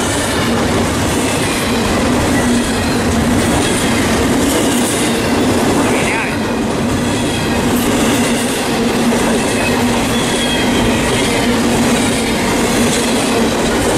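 Double-stack intermodal freight train of container well cars rolling past at speed: a steady, loud rush and rumble of steel wheels on rail, with a steady low hum underneath.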